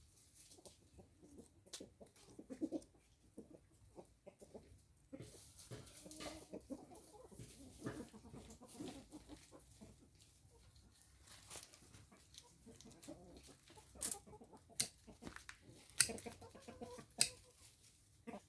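Chickens clucking softly on and off, with a few sharp clicks in the second half.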